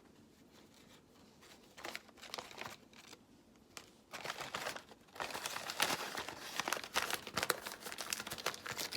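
Paper crinkling and rustling as it is folded around small parts and handled, sparse at first and busier and louder from about four seconds in.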